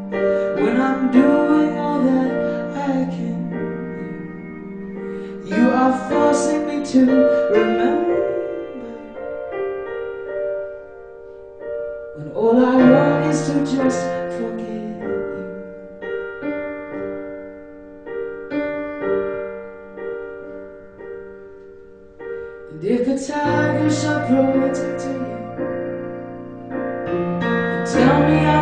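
A woman singing in phrases, accompanied by an electric stage piano playing held chords. The piano carries on alone in the gaps between the sung lines.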